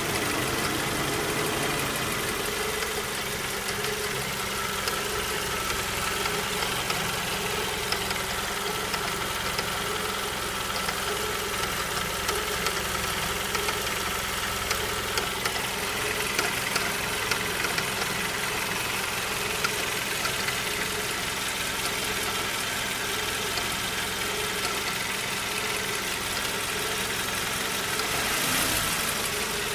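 Suzuki Grand Vitara's 2.4-litre J24B four-cylinder petrol engine idling warm, with scattered light ticks over the steady running: the extraneous noise the owner is trying to pin down. The revs lift slightly near the end.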